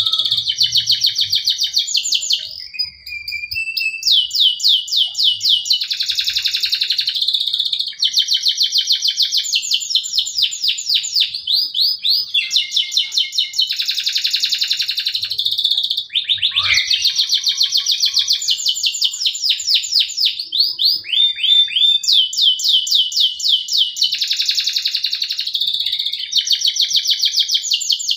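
Male canary singing a long, unbroken run of song: phrase after phrase of fast trills and repeated chirping notes, high-pitched and changing every second or two, with a few brief pauses.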